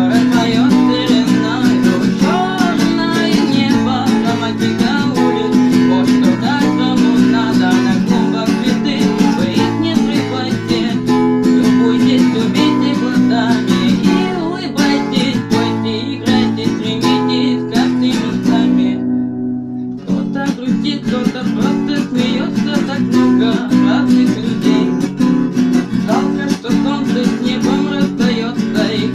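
Acoustic guitar strummed in a steady rhythm of chords; the strumming thins out for about a second roughly two-thirds of the way through, then picks up again.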